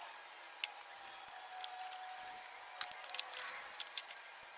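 Scattered light metallic clicks and clinks from handling steel engine-stand parts and tools, with a quick cluster of sharp ticks near the end as a socket is taken from a socket set, over a faint steady hum.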